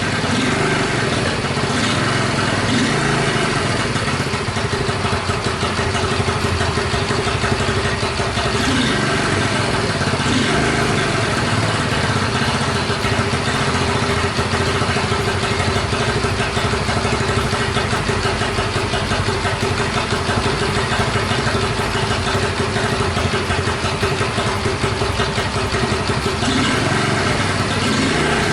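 Freshly rebuilt Honda SS50's 49cc four-stroke single-cylinder engine idling steadily; its idle is still a little unstable and needs running in.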